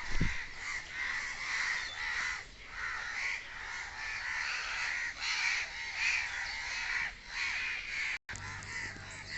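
Crows cawing, many harsh calls following one another without pause.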